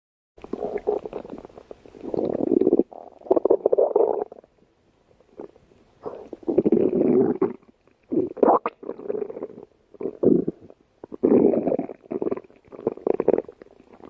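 Human stomach growling: a string of rumbles in irregular bursts of one to two seconds, with short pauses between them.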